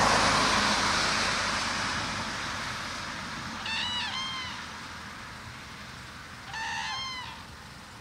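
Eurasian cranes give two short, arched trumpeting calls, one about halfway through and one near the end, the first sounding doubled. A broad rushing noise fades away over the first few seconds.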